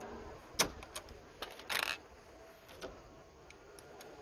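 Metal clicks and clinks of a socket and small battery-terminal hardware being handled: a sharp click about half a second in, a few lighter ticks, and a short scraping rattle near the middle.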